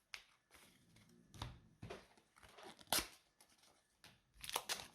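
Pokémon trading cards and a foil booster pack being handled: scattered soft taps and rustles, one sharper click about three seconds in, and the crinkle of the foil wrapper starting near the end.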